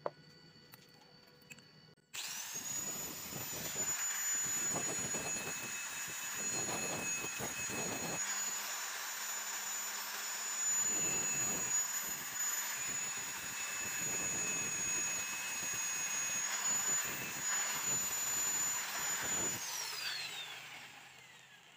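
Angle grinder switched on about two seconds in, its disc grinding the rusty ends of steel flat bar down to bright metal, with a steady high whine and a rough grinding rasp that comes and goes as the disc bears on the steel. Near the end it is switched off and the whine falls away as the disc spins down.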